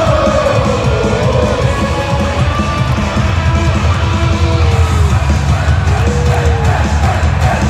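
Wrestler's rock entrance music with guitars and a heavy beat, played loud over an arena's PA, with a crowd yelling and cheering over it.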